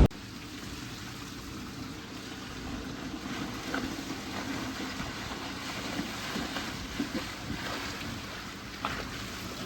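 Low, steady water and light wind sound around a small boat on calm water, with a few faint knocks scattered through it.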